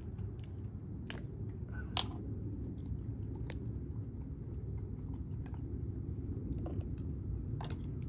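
Wood campfire crackling, with a few sharp pops over a steady low rumble.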